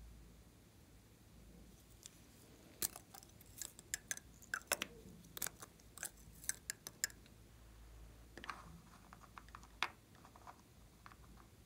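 Irregular small clicks and taps from handling cosmetic bottles: caps and applicators knocking and clicking as their contents are worked over a tray of slime. They come in two clusters, a few seconds apart.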